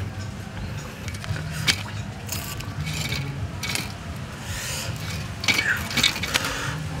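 Grilled whole duck being handled and lifted off a wire grill rack into a woven bamboo basket: scraping and rustling with a few sharp clicks, loudest about a second and a half in and again near the end.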